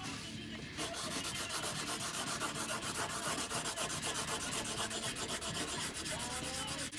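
Hand sanding with 320-grit sandpaper wrapped around a dowel, working the finger choil of a folding knife in quick, even back-and-forth strokes that start about a second in.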